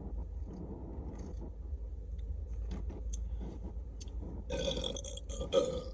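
A woman's loud, drawn-out burp starting about four and a half seconds in and lasting about a second and a half, after a stretch of faint mouth clicks.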